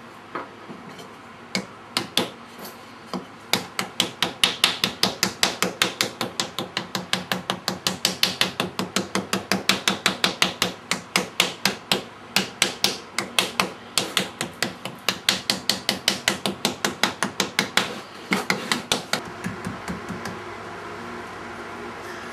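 Rapid hammering: sharp blows at about four a second, beginning with a few scattered strikes and stopping a couple of seconds before the end.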